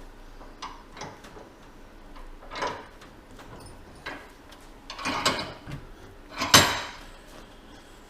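Tools and metal parts being handled at a workbench: scattered clicks and short scrapes, a few of them louder, the loudest about two-thirds of the way in.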